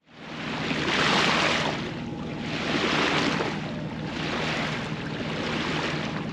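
Sea water rushing and washing past a moving sailboat, surging about four times, roughly every one and a half seconds, with a faint steady low hum underneath.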